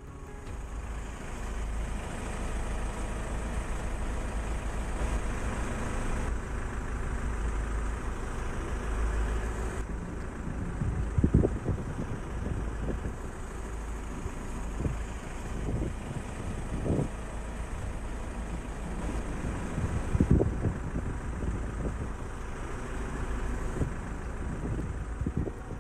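Steady low rumble of truck engines and traffic on the highway, with a few short knocks in the middle.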